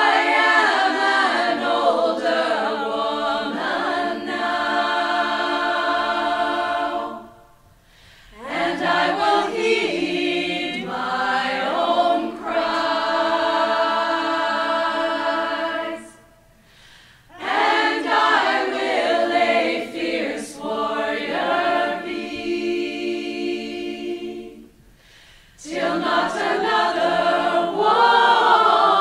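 Choir singing a cappella in long sustained phrases, each broken off by a short pause of about a second, three pauses in all.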